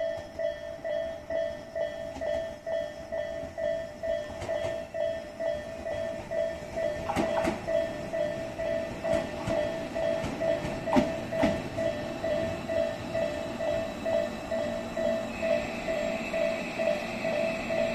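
A Tobu 'Ryōmō' limited express train running out of service past a Japanese level-crossing alarm, which rings steadily at a little over two strokes a second. Wheels click and clack over the rail joints about seven to twelve seconds in.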